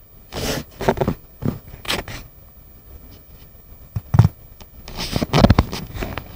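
Phone handling noise: fingers and skin rubbing and scraping over the phone's body and microphone in irregular scratchy bursts, sparse at first and nearly continuous near the end.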